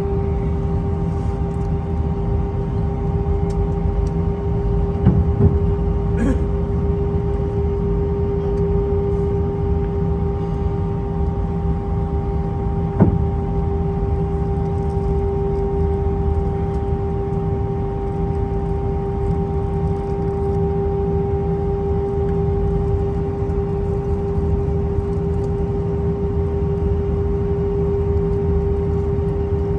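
Airbus A319 cabin noise heard from a window seat: a steady drone of engines and air system with a constant mid-pitched whine over a low rumble, and a few faint knocks about five, six and thirteen seconds in.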